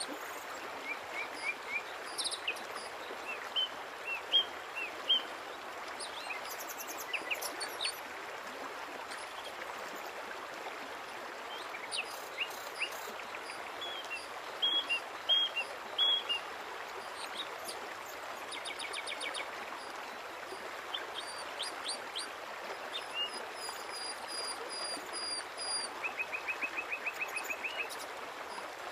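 Small songbirds chirping and trilling in scattered bursts over a steady background hiss, with a fast, even trill near the end.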